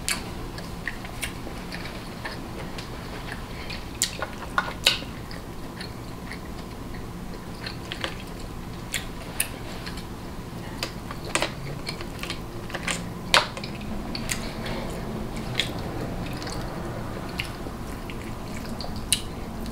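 A person chewing seafood-boil food, with sharp clicks scattered throughout over a low steady hum.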